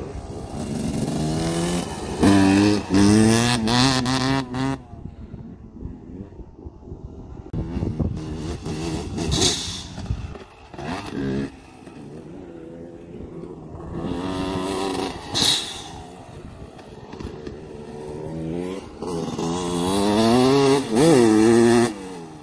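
Dirt bikes riding past on a dirt track one after another, their engines revving up with the pitch climbing and dropping at each gear change. The sound swells loud with each pass and fades between them, with about four loud passes.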